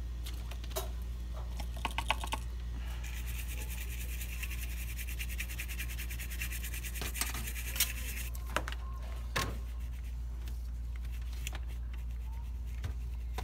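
Small brush scrubbing the solder side of a power-supply circuit board, with a few sharp clicks and knocks as the board is handled, over a steady low electrical hum.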